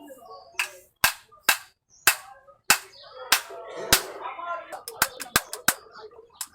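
Sharp, repeated knocks, about one every half second at first and coming quicker in the last second and a half, heard during work on an electric motor.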